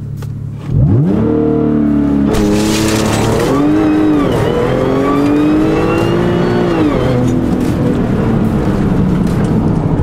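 Supercharged 3.0-litre V6 of a tuned Audi S4 launched hard from a standstill, heard from inside the cabin. The engine revs up sharply about a second in and pulls through several quick upshifts, each a climb in pitch followed by a drop, then settles into a steadier run near the end.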